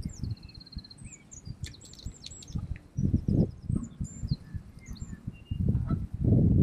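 Songbirds chirping and calling, with one quick trill of repeated notes near the start, over irregular bursts of low rumble that grow loudest near the end.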